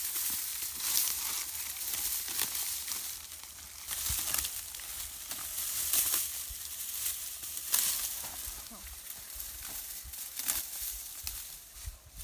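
Sickle cutting and gathering dry, ripe rapeseed stalks: brittle stems and seed pods crackling and rustling in irregular bursts, a new burst every second or two.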